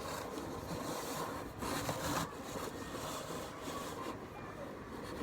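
Rustling and scraping of a cloth being handled against a cardboard box, louder for a moment a little under two seconds in.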